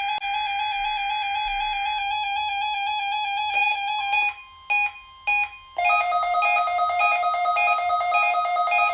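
Electronic emergency-alert tones for a weekly test of the weather-radio warning system. A steady buzzy tone breaks up about halfway, with short gaps and a brief pure tone, and then turns into a fast two-note warble.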